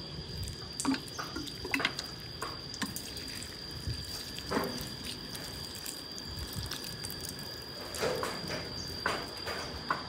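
Water pouring from a watering can onto potted cacti, splashing and dripping irregularly onto soil and plants. A steady high tone runs in the background.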